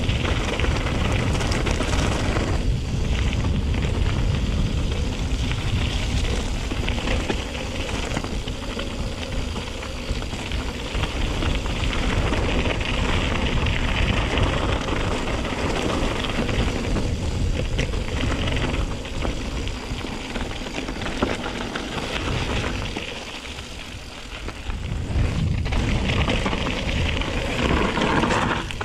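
Mountain bike riding down a trail, its tyres and frame rattling and crackling over the ground, with steady wind rumble on the microphone. The noise eases for a couple of seconds about three-quarters of the way through, then picks up again.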